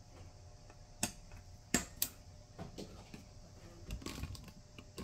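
Scattered light clicks and knocks at irregular intervals, the sharpest about a second in and two close together a little later: hands handling the black metal case of a DIY battery power bank and the items around it on the workbench.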